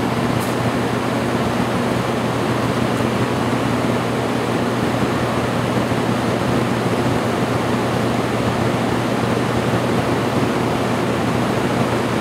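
Steady, even rushing roar of a waterfall, with a steady low hum underneath.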